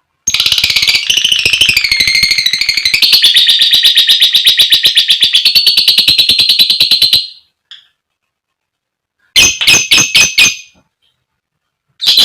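A female lovebird gives a long, rapid chattering trill (the 'ngekek') of about seven seconds, at about ten notes a second. It wavers in pitch at first, then holds steady. About two seconds after it stops comes a quick burst of about five sharp, shrill chirps, and one more call near the end.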